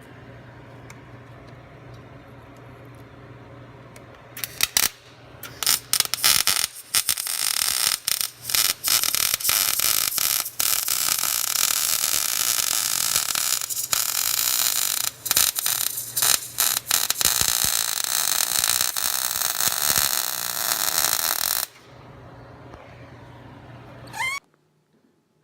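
Arc welding on a truck frame bracket: the arc sputters on and off a few times, then crackles and hisses in one long bead of about 17 seconds before stopping, over a steady electrical hum from the welder.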